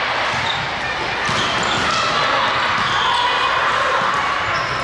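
Sports-hall noise during a volleyball rally: many overlapping voices calling and talking, with thumps of the ball being played and a few short sneaker squeaks on the court floor.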